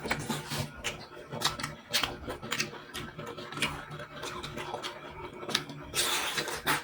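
Close-miked eating sounds of spicy seafood: irregular wet chewing clicks and lip smacks, with a longer, noisier sucking sound near the end.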